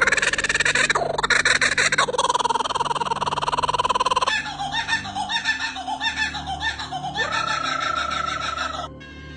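Birds calling, two different calls in turn. First comes a harsh, rapidly pulsed buzzing call. About four seconds in it gives way to a rhythmic call repeating about twice a second, which ends in a held, steady whistle.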